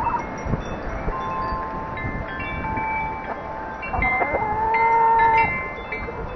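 Wind chimes ringing, many overlapping notes that start and fade. A brief knock about four seconds in, then a louder tone held for about a second.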